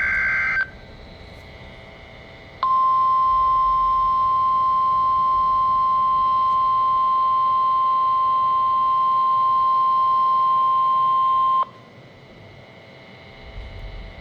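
NOAA Weather Radio weekly test signal. The last of the SAME digital header's warbling data burst cuts off in the first second. After about two seconds of faint radio hiss, the warning alarm tone sounds, one steady high tone held for about nine seconds, then stops abruptly.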